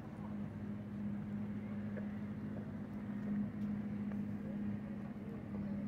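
A steady low motor hum, running evenly throughout, over faint background noise.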